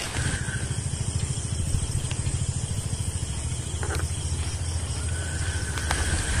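Gusty wind buffeting the microphone, a low rumble that flutters constantly.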